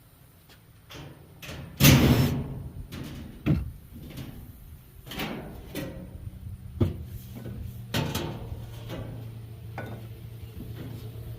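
Irregular knocks, bangs and scrapes of a refrigerator being taken apart for scrap, the loudest about two seconds in. A low steady hum comes in about seven seconds in.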